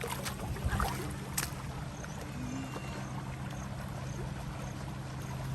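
Water running and splashing in a swimming pool over a steady low helicopter drone, with a small bird peeping about twice a second from about two seconds in.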